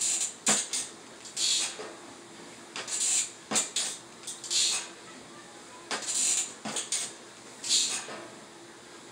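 A person doing standing knee raises: a short hissing swish about every one and a half seconds, five in all, with a few sharp clicks in between.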